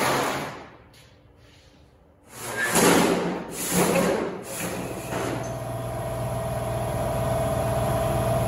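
Shop machinery at a CNC plasma table: a sharp rush of air at the start that fades within a second, three more rushes of air from about two seconds in, then a steady machine hum with a low drone and a mid-pitched tone.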